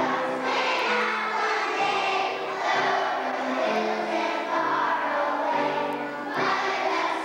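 Music with a choir singing: held notes that move to new pitches every second or so.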